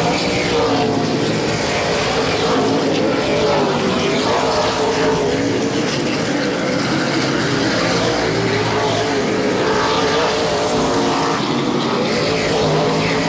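Several Super Late Model race cars running together at racing speed, their V8 engines droning loudly and steadily, the pitch rising and falling as they circle the oval.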